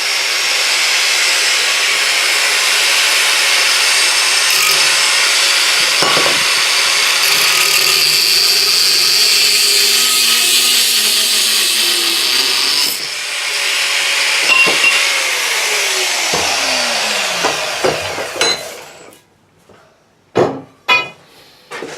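Electric power tool cutting through a steel pipe, a loud steady whine that dips briefly partway through, then the motor winds down with a falling tone. A few metal clanks follow near the end.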